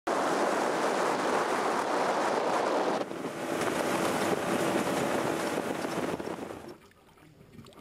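Wind rushing over the microphone, then, after a cut about three seconds in, a motorboat running fast across open water, with the faint steady hum of its outboard motor under the wind and water noise. The sound fades away near the end.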